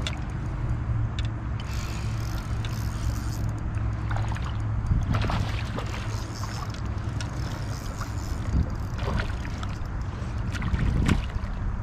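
Flowing river water, with a steady low rumble of wind on the microphone. A few brief splashes come as a hooked smallmouth bass fights at the surface.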